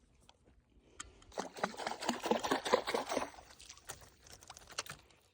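Water splashing and dripping for about two seconds, a dense run of small crackling splashes, then a few scattered drips and clicks.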